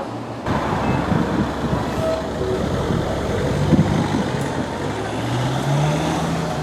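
Street traffic noise with a motor vehicle's engine running, its pitch rising near the end as it speeds up. The noise sets in abruptly about half a second in.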